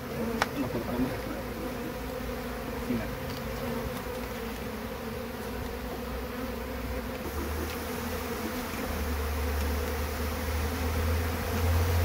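Honeybees of a disturbed colony buzzing steadily around comb being cut out of their nest, a continuous hum. There is a single sharp click about half a second in, and a low rumble comes in during the second half.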